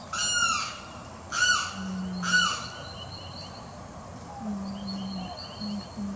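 Limpkin calling: three loud calls within the first two and a half seconds, each rising and then falling in pitch. A few softer, steady low notes follow in the second half.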